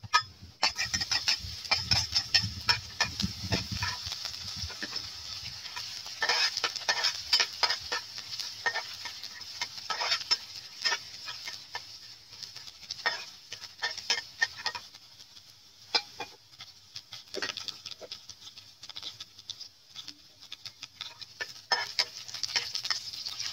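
Chopped garlic sizzling in hot oil in a non-stick frying pan. A metal spatula scrapes and clicks against the pan as it stirs.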